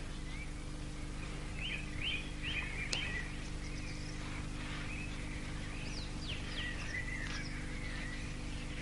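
Small birds chirping, with short twittering calls scattered throughout, over a steady low hum.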